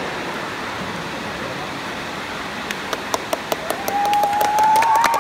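Crowd murmur echoing in a sports hall. From about three seconds in, scattered claps build up, and near the end comes a long whistle that rises in pitch.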